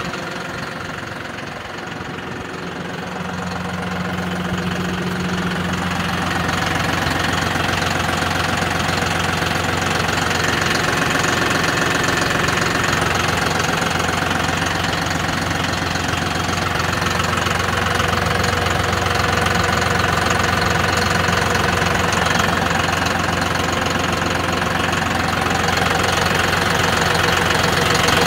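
John Deere 5075E tractor's diesel engine idling steadily, its hum growing louder over the first several seconds.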